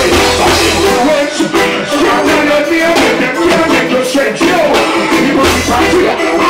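Live reggae band music with a male vocalist singing into a microphone over electric guitar and drums.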